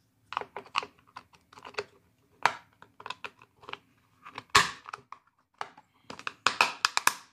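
Plastic clicks and taps as the snap-on cover of a Sinbo electric kettle base's connector housing is handled and pressed into place, with the loudest click about halfway through and a quick run of clicks near the end.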